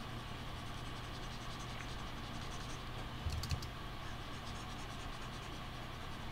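Steady low hum and hiss of the room, with a brief cluster of clicks and a soft thump at the computer a little over three seconds in.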